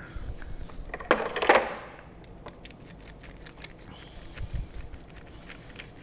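A screwdriver driving a small screw into the stem of a plastic shower valve cartridge: light scattered clicks of metal on plastic, with a brief louder clatter of handling about a second in.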